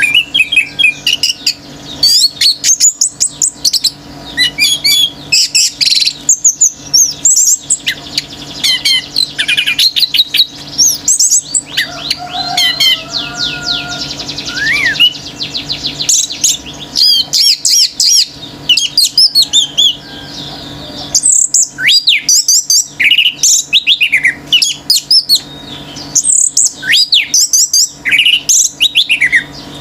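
Orange-headed thrush (anis merah) in full, non-stop song: a loud, rapid stream of varied whistles, chirps and glides, with a fast rattling trill about twelve seconds in.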